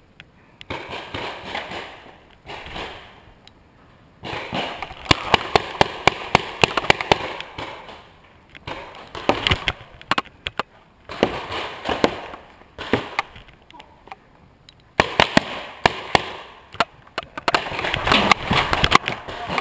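Paintball markers firing, sharp pops in about five rapid volleys separated by short lulls, with rustling noise between the shots.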